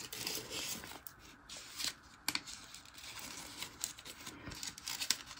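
Faint rustling and light ticks of paper and card being handled on a tabletop, in short scattered bursts.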